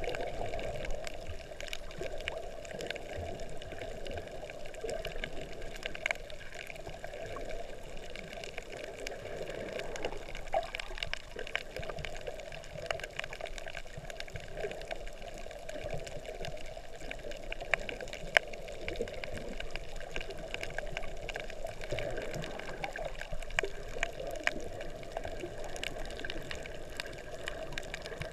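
Underwater ambience picked up by a camera submerged over a shallow reef: a steady, muffled wash of water with many faint crackling clicks throughout, and one louder click about two-thirds of the way in.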